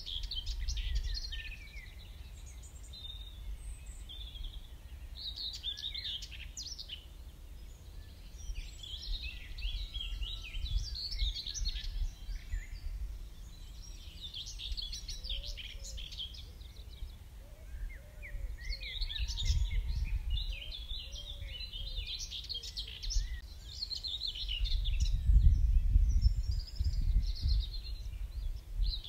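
Dawn chorus: many birds singing and chirping at once, in overlapping trills. Beneath it runs a fluctuating low rumble that swells twice, loudest about five seconds before the end.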